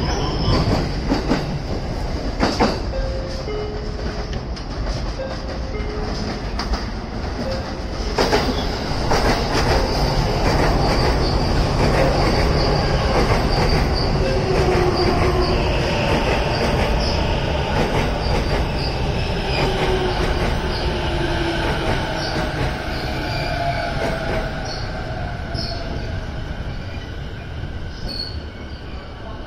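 JR East electric trains moving along the platform: an E353 series limited express sliding past, then an E233 series commuter train. Wheels click over the rail joints in the first part, then the traction motors give a whine that falls in pitch, and the sound eases off near the end.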